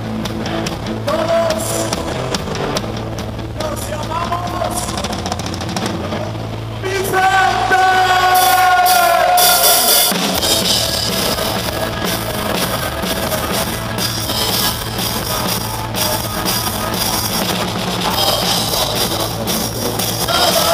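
Live rock band playing through a stadium PA, heard from beside the drum kit. A quieter passage over a steady low note gives way to a long held note about seven seconds in, then the full band with drums and cymbals comes in about ten seconds in.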